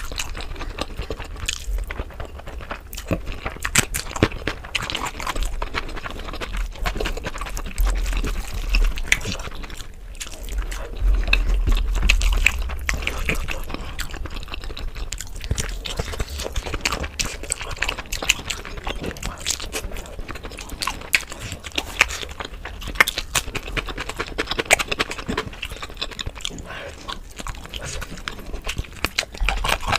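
Close-miked eating sounds at double speed: rapid wet chewing and mouth smacks as rice and chicken curry are eaten by hand, a dense run of small irregular clicks throughout.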